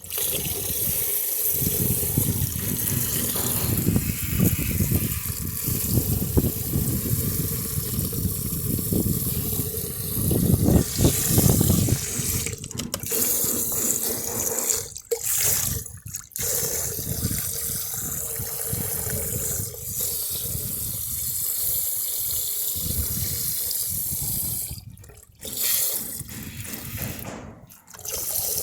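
Water running and splashing from a leaking dishwasher as it fills, a steady rush with a few brief breaks.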